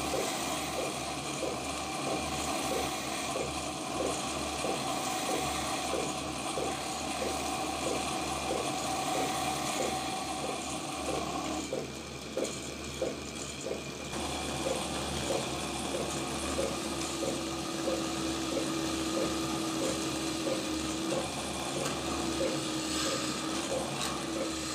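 Wood lathe spinning a wooden blank while a hand chisel cuts into it, a steady scraping noise with a regular tick about twice a second. The cutting drops away briefly about halfway, and in the second half a steady tone sounds as a long tool bores into the end of the piece.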